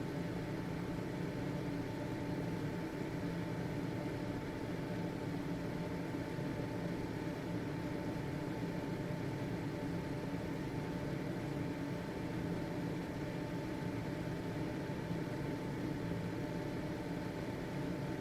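Household ventilation fan running steadily: a constant motor hum with a thin steady whine above it and a soft rush of air.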